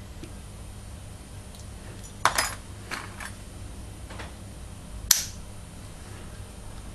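A few small, sharp metallic clicks and clinks from a padlock being worked with lock-opening tools. The loudest come about two seconds in and about five seconds in.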